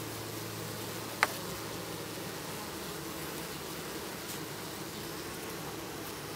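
Honey bees buzzing at the hive in a steady low hum, with one sharp click about a second in.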